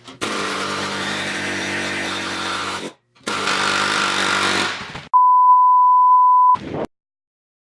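A power tool's motor runs in two stretches of about three and two seconds with a short break between them. Then a single steady, pure electronic beep sounds for about a second and a half, followed by a brief noise, and the sound cuts to dead silence.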